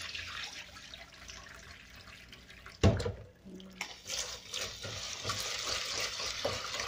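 Kitchen tap running and water splashing as rice is rinsed in a plastic basin in a stainless steel sink: the cloudy rinse water is poured off, a loud knock comes just under three seconds in, then the tap runs into the basin and a hand swishes the rice in the water.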